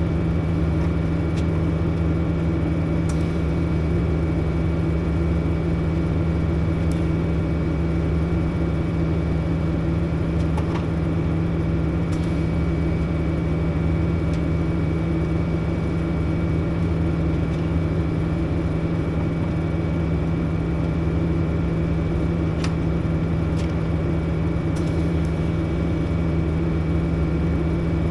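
A steady machine hum with a strong low tone and a faint high whine above it, holding an even level throughout, with a few light ticks scattered through.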